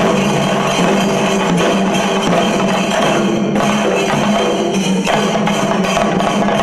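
Chenda melam: several chenda drums beaten with sticks in a dense, continuous rhythm, with ilathalam hand cymbals clashing along.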